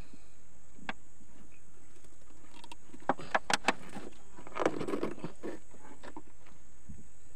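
Handling noises of a nylon gill net and a caught fish in a wooden canoe: a quick run of four sharp knocks about three seconds in, then a looser cluster of knocks and scraping about a second later, with single clicks before and after.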